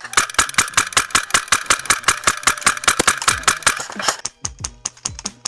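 Airsoft gun firing a long full-auto burst of about four seconds: a rapid, even run of sharp shots, about ten a second, that stops near the end.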